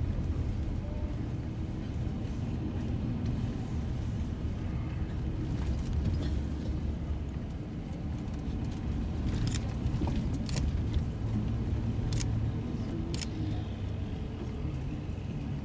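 Low, steady rumble of engine and road noise heard from inside a moving vehicle, with a few sharp clicks past the middle.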